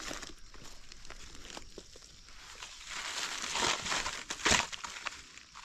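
Dry fallen leaves rustling and crackling as gloved hands clear them aside and dig a wild mushroom out of the forest floor, with a sharper crunch about four and a half seconds in.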